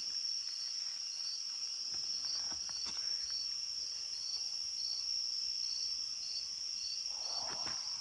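Steady high-pitched chorus of night insects, with a softer short chirp repeating at a regular pace beneath it.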